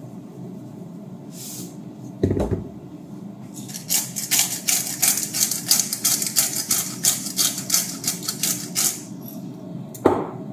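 Kitchen utensil work: a thump, then a quick run of light clicking taps, about five a second for roughly five seconds, and a single sharp knock near the end, over a low steady hum.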